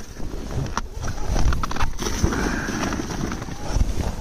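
Boots crunching through deep, cold snow in irregular steps, over a low rumble of wind on the microphone.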